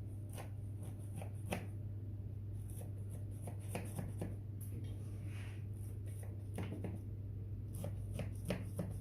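Kunafa pastry crackling and crunching in scattered sharp snaps as a piece is cut, over a steady low hum.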